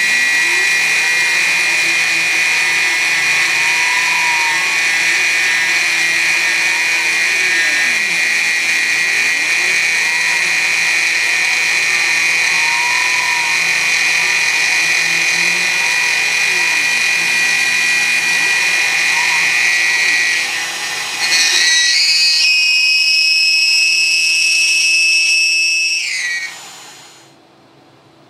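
CNC milling machine's spindle running with a steady high whine while cutting plastic, with faint rising and falling whirs underneath. About three quarters of the way in the whine steps up in pitch, then near the end it falls away as the spindle winds down, leaving only a quiet hum.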